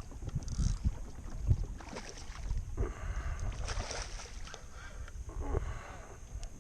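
Water splashing and sloshing against a kayak, with irregular gusts of wind buffeting the microphone.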